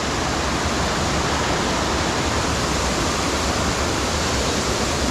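Waterfall pouring, a steady even rush of whitewater heard close by.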